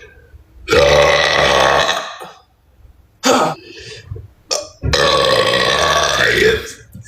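A woman burping: two long burps, each lasting about a second and a half to two seconds, with a short sound between them.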